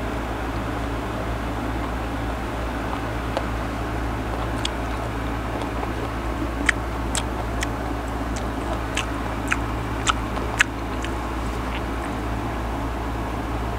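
Close-up chewing of firm, half-ripe mango slices: a scatter of sharp, crisp crunches and mouth clicks, thickest from about six to eleven seconds in, over a steady low background hum.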